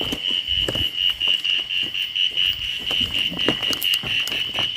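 Forest insects, crickets among them, calling in a steady, pulsing high trill, with scattered light knocks and clicks.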